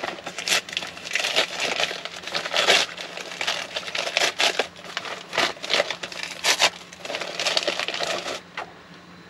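Crinkling and crunching of a bag of thin, crispy toffee snacks being opened and eaten, a dense run of irregular sharp cracks that stops near the end.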